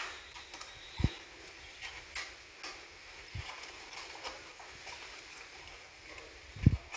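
Scattered light clicks and taps from handling computer parts, with a dull thump about a second in and a louder double thump near the end.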